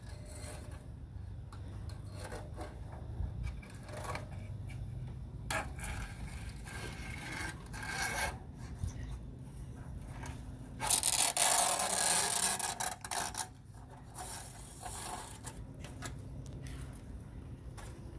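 Old screen mesh being pulled free of a lanai screen frame and handled, with irregular rubbing and scraping and a louder stretch of it about eleven seconds in.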